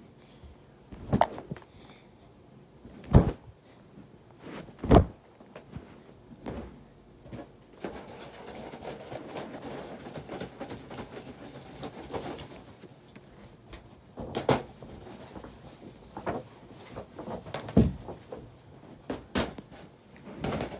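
Irregular knocks and thumps, a few seconds apart and of varying strength, the loudest about three and five seconds in, with a stretch of shuffling noise in the middle.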